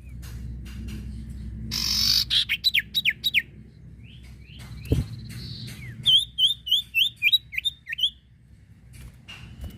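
Common iora (sirtu) calling: a harsh rasp, then a quick run of down-slurred whistles, and later a rhythmic series of about seven hooked, rising-and-falling whistled notes, ending on a short steady whistle. A single sharp thump comes about halfway through, over a steady low rumble.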